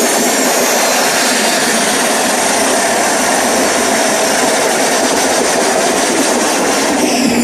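Loud, dense rushing wash of noise from the festival sound system, like a jet whoosh, with a falling sweep near the end: an intro sound effect in a hardstyle show, heard through a phone's microphone.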